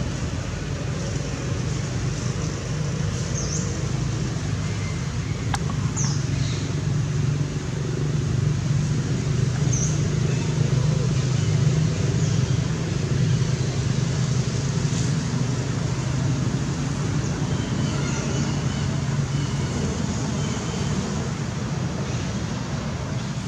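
Steady low rumble of motor traffic, growing louder around the middle and easing off again, with a few short high chirps over it.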